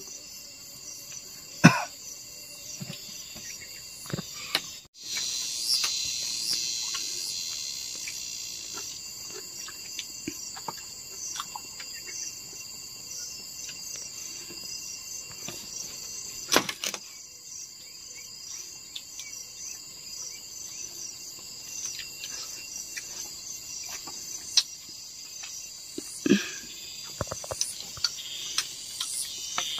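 Steady high-pitched chorus of insects chirring, with a few sharp knocks scattered through it.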